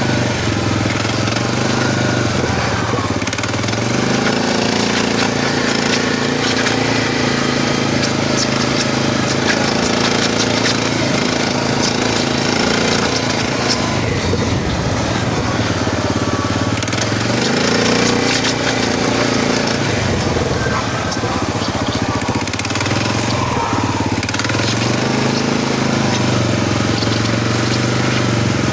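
SF Moto 500 engine running with a knocking and grinding noise from inside the engine. The engine speed rises and falls a few times.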